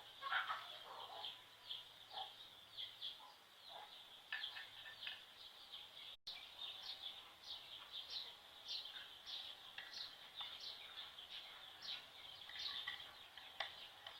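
Faint bird chirping: a steady run of short, falling chirps, about two a second, over a high hiss.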